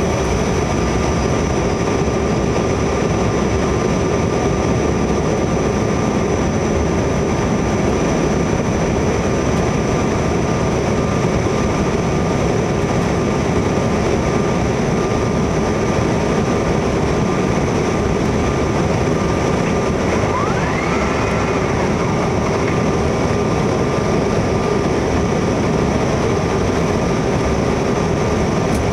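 Steady in-flight cabin noise of a Bombardier CRJ900 on final approach: its turbofan engines and the airflow make a constant roar with a thin steady whine over it. About two-thirds of the way through, a brief rising tone sounds.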